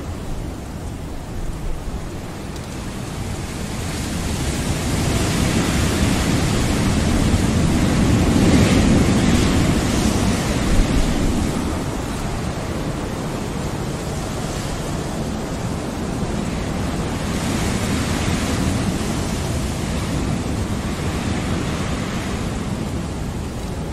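Ocean surf ambience: a steady rushing wash that slowly swells and ebbs, cresting twice.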